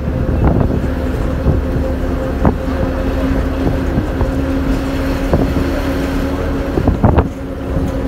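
A motor running steadily with a constant hum and low rumble, with scattered short knocks and clicks over it.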